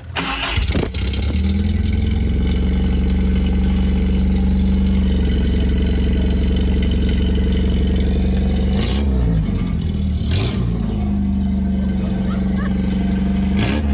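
Datsun 910 Bluebird engine starting and running at a steady idle through its freshly cut, shortened exhaust pipe. It catches within the first second and holds a steady note.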